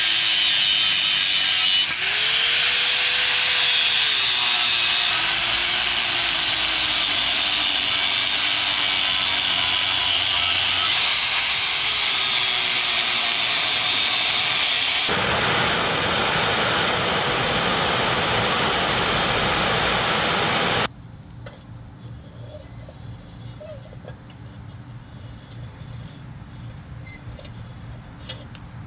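A handheld power tool running under varying load, its motor pitch dipping and recovering as it works, then cutting off abruptly about 21 seconds in.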